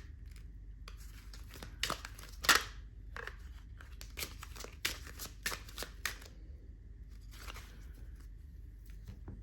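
Tarot cards being shuffled and handled: an irregular run of short, sharp card snaps and slides, the loudest about two and a half seconds in.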